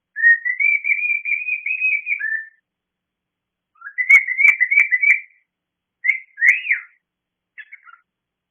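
Pet cockatiel whistling for attention: a long warbling whistle of about two seconds, then a shorter choppy phrase broken by clicks, a single rising-and-falling note, and a couple of short chirps near the end.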